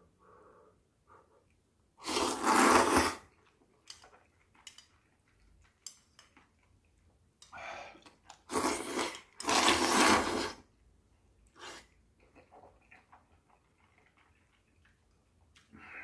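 Kalguksu noodles slurped loudly from chopsticks: one long slurp about two seconds in, then three more in quick succession later on. Small mouth and utensil clicks fall between.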